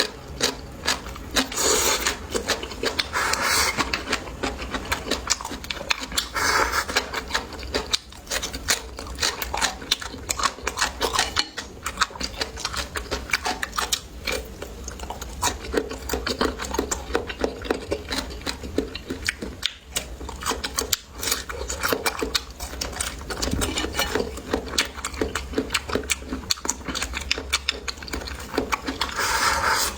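Close-miked eating: rapid, continuous chewing and wet mouth clicks, with a few louder crunchy bites.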